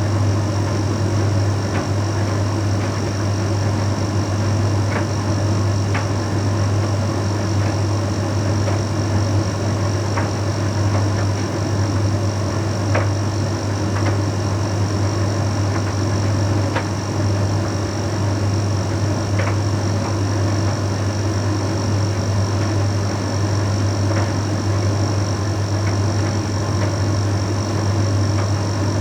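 Bosch Series 6 heat pump tumble dryer running steadily mid-cycle on a Shirts program: a constant low hum with a faint high whine, and occasional light ticks every few seconds.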